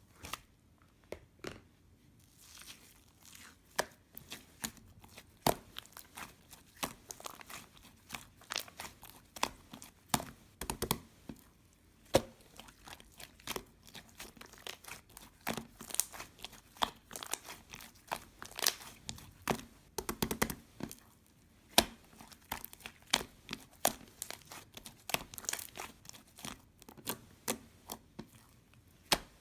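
Crinkly material being handled close up: irregular crinkling and crackling with many sharp clicks, a steady stream of them after the first couple of seconds.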